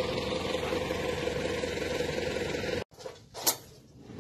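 Tractor diesel engine idling steadily, then cutting off abruptly about three seconds in; a single sharp click follows a moment later.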